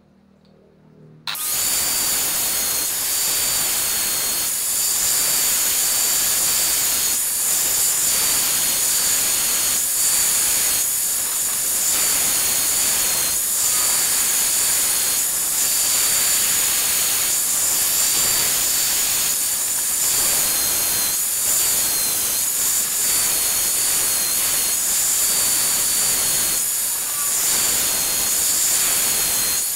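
Electric angle grinder switches on about a second in and runs with a steady high whine as its disc grinds the cutters of a chainsaw chain, the sound dipping briefly every second or so.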